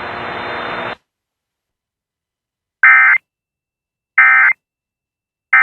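Emergency Alert System end-of-message signal: three short, identical bursts of SAME digital data tones, about a second and a half apart, marking the end of the alert. Before them comes about a second of steady broadcast hiss that cuts off suddenly.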